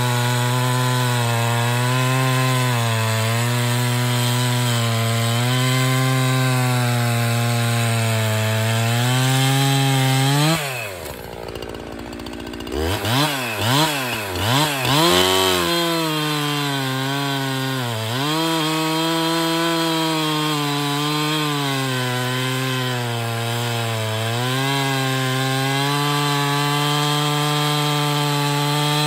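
Husqvarna 365 Special two-stroke chainsaw running at full throttle and cutting through a log with an Oregon EXJ full-skip chain, its pitch sagging slightly under load. About ten seconds in it drops to idle for a couple of seconds and gets a few quick throttle blips, then goes back to full speed cutting.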